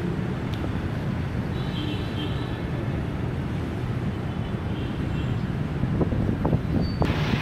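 Outdoor city ambience: a steady low rumble of distant traffic mixed with wind on the microphone. There are faint high chirps a couple of seconds in, and sharper clicks and knocks near the end.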